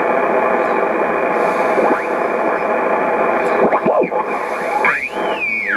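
SBE SB-36 HF transceiver's receiver tuned across a ham band, heard through its speaker: a steady band hiss with garbled sideband signals. Whistling tones slide up and down in pitch as the dial passes stations, and near the end one whistle rises, falls and settles on a steady note.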